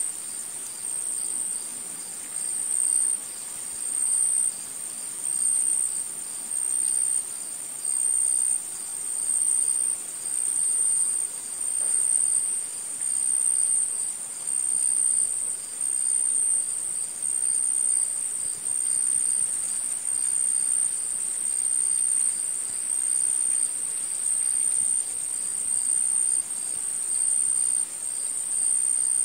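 High insect trill, steady and swelling in regular pulses a little over a second apart.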